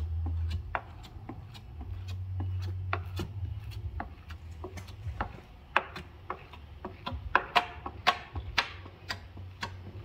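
Plastic card squeegee rubbing and scraping over wet window tint film on glass, pushing the water out: a run of short, irregular scrapes and clicks, getting louder and more frequent in the second half, over a low hum.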